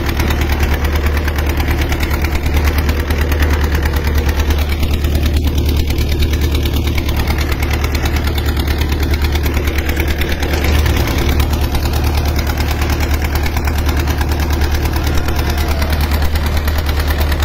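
Small boat's uncovered inboard engine running steadily under way, with a constant low drone.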